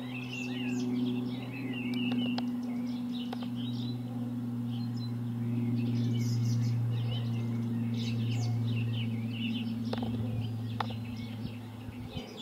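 Steady low drone of an Airbus A400M's four turboprop engines and propellers passing overhead, with small birds chirping and warbling throughout.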